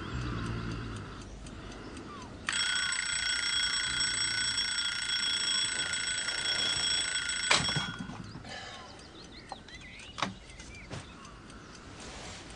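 An electronic alarm ringer sounds one continuous ring of several steady high tones for about five seconds, then cuts off with a sharp click.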